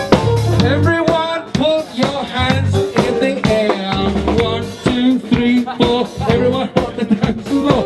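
Upbeat dance music with a drum-kit beat, a bass line and a melodic line over it.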